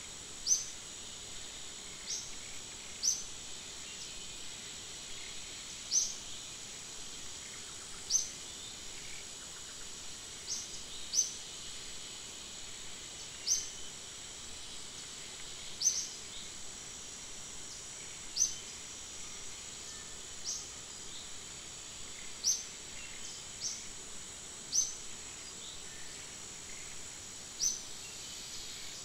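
Tropical forest ambience: a steady high insect drone, with short, sharp, high chirps rising above it every one to three seconds.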